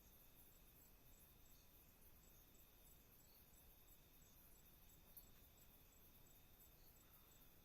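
Faint night ambience of insects: a high-pitched chirp repeating evenly about three times a second over a steady high buzzing tone, with fainter, thinner chirps above, all over a low background hiss.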